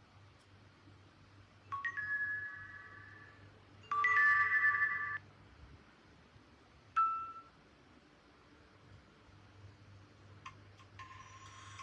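Nokia N8-00 ringtone playing: three short electronic chime chords a couple of seconds apart, the middle one loudest and cut off sharply, the last one brief. A fainter tone starts near the end.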